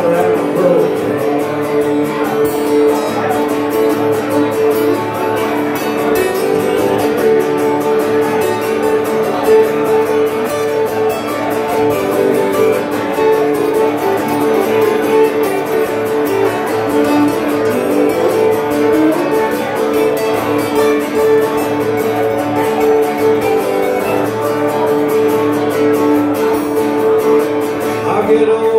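Acoustic-electric guitar played live in a solo song performance, a steady run of chords and held notes with little sign of singing.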